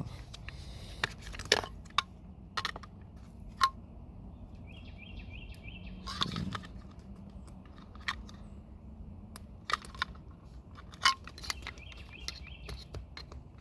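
Plastic seat trim on a Ford F-150 being worked loose by hand: a dozen or so scattered sharp clicks and knocks as the piece is pried and wiggled against its clips.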